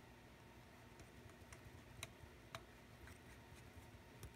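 A handful of faint, irregular small clicks of a lens element and barrel parts being turned and seated while a Nikon 70-200mm f/2.8 zoom lens is reassembled by hand.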